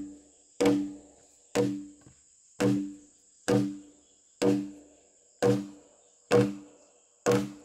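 A heavy wooden mallet pounds a notched log joint, about one blow a second, eight blows in all. Each blow is a hollow wooden knock with a short low ring. A steady high-pitched insect drone, like crickets, runs underneath.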